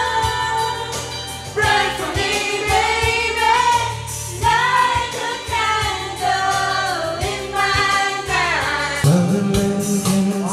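Karaoke singing: a woman sings into a microphone over a backing track, holding notes that bend in pitch. About nine seconds in, a man's voice takes over.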